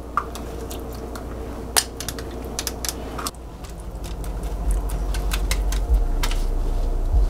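Silicone pastry brush dabbing melted garlic butter and tapping against a plastic tub and the foil-lined baking tray: a scatter of light clicks and taps. Underneath, a low hum grows louder through the second half.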